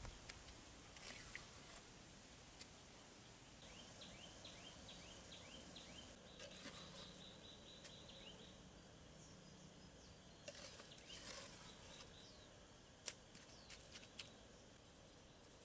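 Faint scraping and clicking of stones and a small hand tool as stones are set into mud, with a sharper knock near the end. A run of short high chirps comes a few seconds in.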